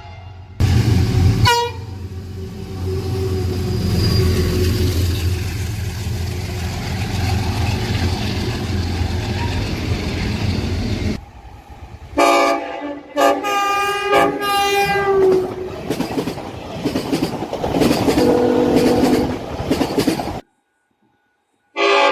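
Train horns from several clips in a row. A horn chord sounds over the rumble of a passing train, and the train's steady rumble runs on for several seconds. After an abrupt change comes a series of multi-chime air horn blasts, two short and one long, then another lower horn chord. The sound cuts to silence for about a second before another horn blast starts near the end.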